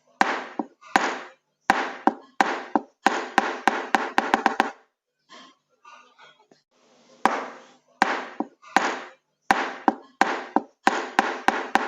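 Hammer blows, each with a brief ringing decay. They come at first about one every 0.7 s, then in quicker runs, stop for about two seconds midway, and start again in the same pattern.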